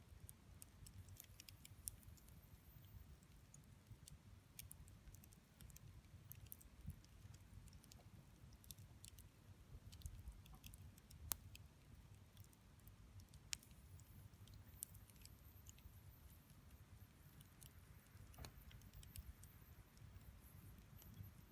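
Wood fire burning with faint, irregular crackles and sharp pops scattered throughout, over a low steady rumble.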